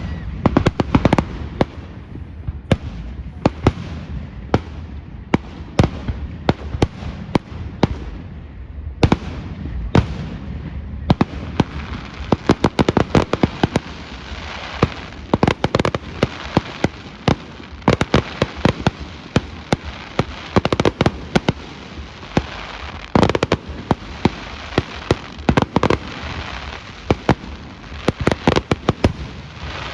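Fireworks display going off: a rapid, continuous run of sharp bangs and crackling reports, heard as rumbling booms from the distance. The bangs come thicker and faster from about eleven seconds in.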